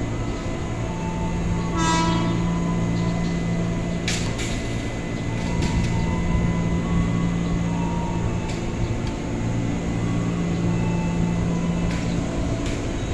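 Electric commuter trains running at the station, with a steady electric hum and a short horn toot about two seconds in. A few metallic clanks follow a couple of seconds later.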